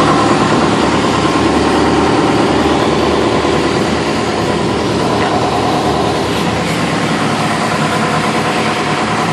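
The 2007 John Deere 120C excavator's diesel engine idling steadily.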